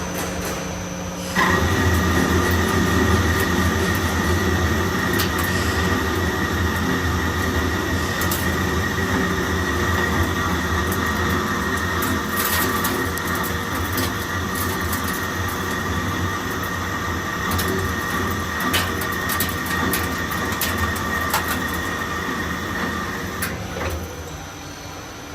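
ALCK0640 CNC lathe running: a steady whine over a low hum, with scattered light clicks. It starts suddenly about a second and a half in and stops a couple of seconds before the end.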